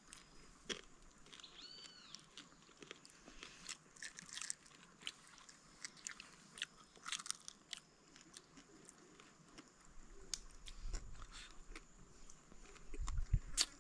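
Faint chewing and crunching of crispy fried fish eaten by hand, with scattered small crunches.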